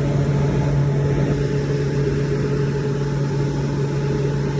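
Walk-in cooler fan motors running with a steady hum.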